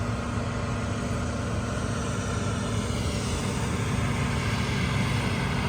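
Steady low drone of a diesel semi truck's engine running, with an even hum that grows slightly louder about halfway through.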